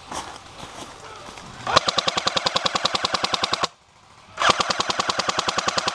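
Airsoft M60 firing two long full-auto bursts of rapid, evenly spaced shots: the first starts a little under two seconds in and lasts about two seconds, the second starts about four and a half seconds in and is still going at the end.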